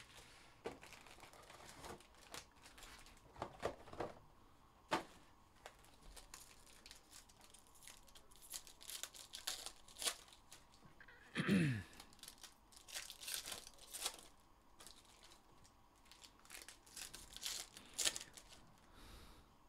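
Trading card packs of Panini Mosaic Baseball being torn open and their wrappers crinkled as cards are handled: a string of faint rips, rustles and clicks, with one louder rip about halfway.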